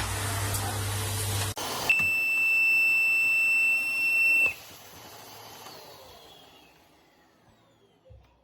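Rowenta RO3950 bagged vacuum cleaner running with a low hum, cutting off about a second and a half in. Then comes a click and a steady high-pitched beep lasting about two and a half seconds, which stops abruptly, followed by faint noise fading away.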